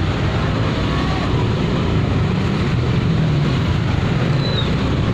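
Traffic jam at close range: truck and motorcycle engines running around the microphone, a steady low rumble.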